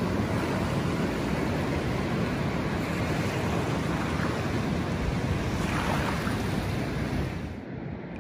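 Steady rush of ocean surf mixed with wind buffeting the microphone, the hiss easing and thinning near the end.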